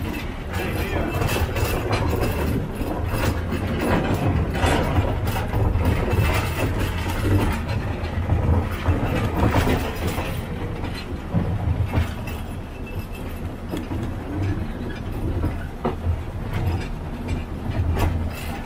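Narrow-gauge field railway train running along its track: wheels clattering over rail joints and the cars rattling continuously over a steady low drone.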